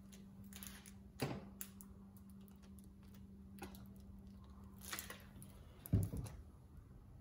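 Light clicks and clatter of a plastic bottle with a hose and small parts being handled on a workbench, with a sharper knock about a second in and a louder thump about six seconds in as something is set down.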